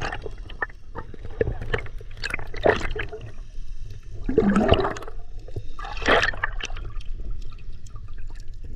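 Underwater sound of seawater sloshing and gurgling around a camera held just below the surface: a steady low rumble with several louder rushing swells and small clicks.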